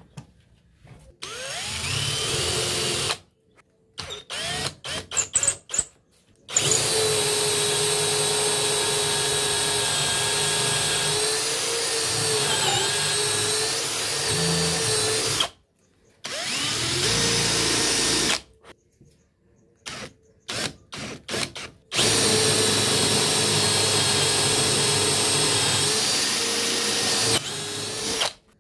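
Cordless drill boring into a wooden block, its motor whining steadily in long runs of several seconds, with clusters of short trigger blips in between. The pitch dips briefly in the middle of the longest run, as the bit loads up.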